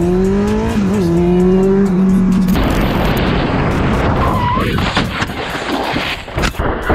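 A sport motorcycle's engine revving up under acceleration, its pitch rising steadily with a short dip about a second in. Then loud wind and road rush on a helmet camera, a brief squeal, and several sharp knocks and scrapes as the motorcycle crashes.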